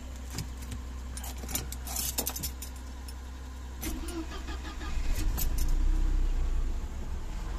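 Keys jingling in the ignition of a Mercedes-Benz W124. About four seconds in, the engine is cranked and catches at once on a cold morning start, then runs at a low idle.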